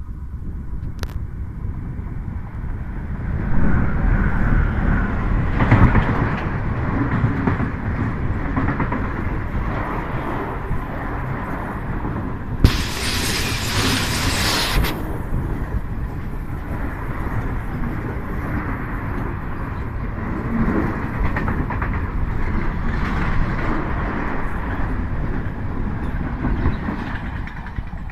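Renfe class 253 electric locomotive hauling a container freight train past. The sound builds to its loudest about four to six seconds in as the locomotive arrives, then becomes a long steady rumble and rattle of container wagons running by. A burst of hissing noise lasts about two seconds midway.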